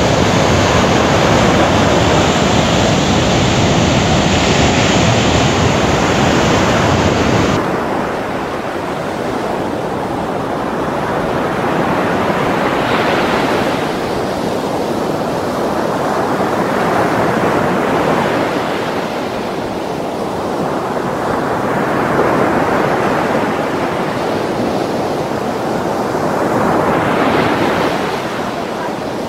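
Heavy ocean swell breaking over volcanic rocks: the steady noise of crashing surf and churning foam. After about eight seconds it sounds more distant and rises and falls with each breaker, roughly every four to five seconds.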